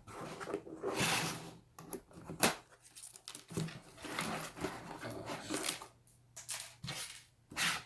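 Cardboard box and plastic wrapping of a charger being opened and handled: irregular crinkling, tearing and scraping, with a few sharp clicks and knocks, several of them near the end.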